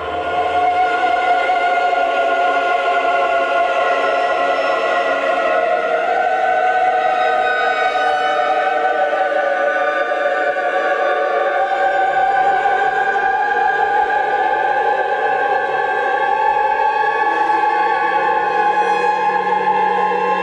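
Classical choral music: many voices holding a dense, slowly shifting chord without a break, coming in suddenly at the start.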